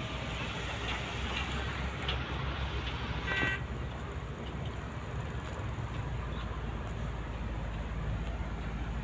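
Sumitomo SH350 hydraulic excavator's diesel engine running steadily. A brief high-pitched squeal comes a little over three seconds in.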